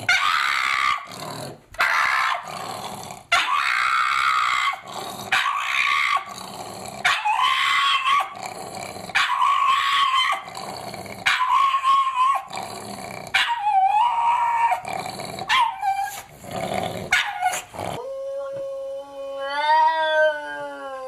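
A dog vocalising in a long string of growly howls and yips, each call short and pitched, one after another. Near the end a smoother, clearer howl rises and then falls in pitch.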